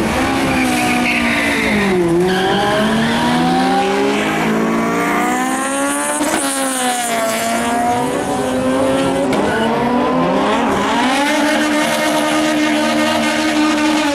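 Car engine run at high revs with tyres squealing, typical of a burnout. The revs dip and climb back about three times, then hold high near the end.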